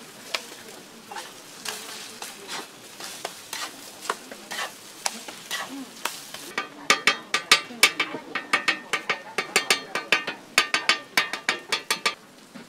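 Okonomiyaki sizzling on a griddle. From about seven seconds in there is a quick run of sharp metallic clicks, roughly five a second, from a cooking utensil striking metal, which stops about a second before the end.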